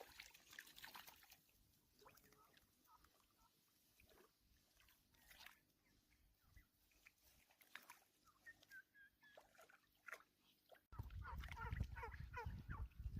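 Faint scattered animal calls, then about eleven seconds in a louder run of many short, high-pitched calls.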